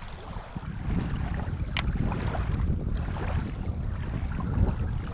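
Wind buffeting the microphone in an uneven low rumble, with small waves lapping at the shoreline. A single sharp click comes a little under two seconds in.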